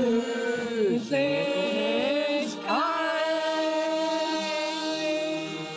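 Bavarian brass band and the beer-hall crowd singing a toast song together, voices rising and falling, then holding one long final note that slowly fades as glasses are raised for the toast.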